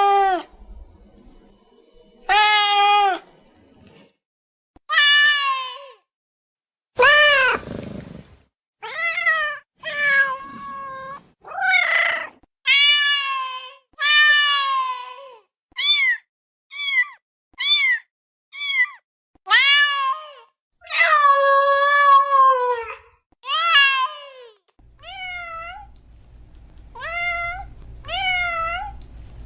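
A domestic cat meowing over and over, about twenty separate meows with short silent gaps between them. Most meows are short and bend up then down in pitch, and one drawn-out meow comes about two-thirds of the way through.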